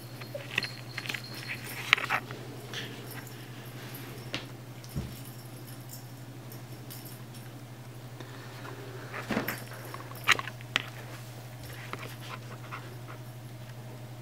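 Puppy giving short, high yips and whimpers in two bursts, one about a second in and another around nine to eleven seconds in.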